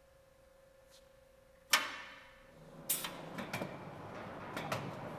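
A faint steady hum, then a loud sharp bang a little under two seconds in, followed by irregular lighter knocks and rattles from the case-clamp transfer table and its workpiece being moved.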